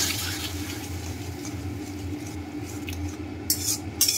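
Flat metal spatula stirring and scraping a thick mushroom masala in a kadai, with a few sharper scrapes near the end, over a steady low hum.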